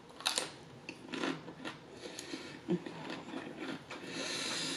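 Biting into a crunchy fried Jack in the Box taco, a sharp crunch just after the start, then crunchy chewing with small crackles.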